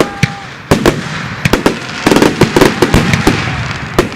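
Fireworks going off: an irregular string of sharp bangs and crackles over a continuous hiss, thickest about two to three seconds in.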